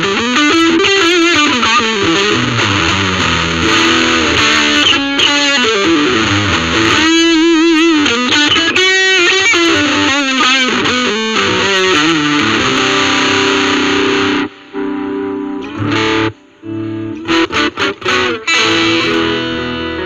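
Ibanez RG350DX electric guitar played distorted through a VOX Soundbox Mini amp. Fast lead runs sweep up and down, then wide wavering vibrato notes. After that come held chords, cut off by sudden stops and short stabbed chords near the end.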